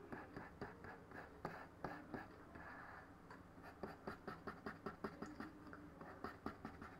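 Soft, quick clicks and light scratching from a computer pointing device being worked while painting skin weights, several a second and coming more steadily in the second half.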